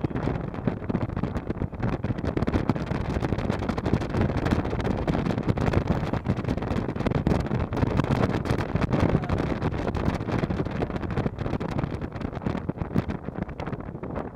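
Wind rushing and buffeting the microphone in the open bed of a fast-moving pickup truck, over the rumble of tyres and engine on the road.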